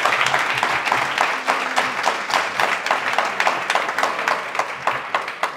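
Audience applauding, a dense patter of hand claps that thins out and gets quieter near the end.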